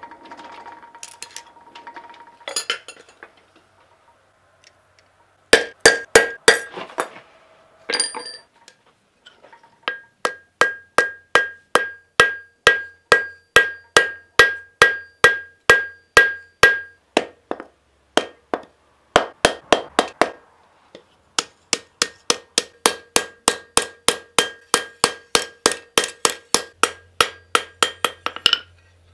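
Hand hammer forging a hot steel knife blade on an anvil: runs of even blows, about three to four a second, each with a ringing metallic tone, broken by short pauses.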